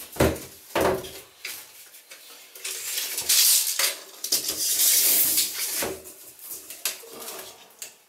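A plastic window board in its protective film being handled and stood upright. Two sharp knocks come in the first second, then a few seconds of scraping and rustling of the board and its film, with a few lighter knocks.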